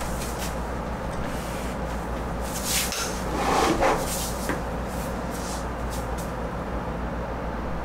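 A teapot being set down, with a short clatter about three to four seconds in, over a steady low hum.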